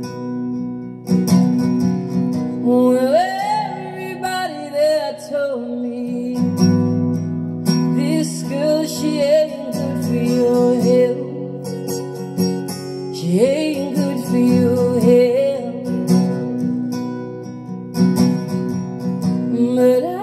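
A song with strummed acoustic guitar and a solo singing voice, played back over Wilson Audio TuneTot loudspeakers driven by Leema Acoustics Elements pre and power amplifiers and recorded in the room.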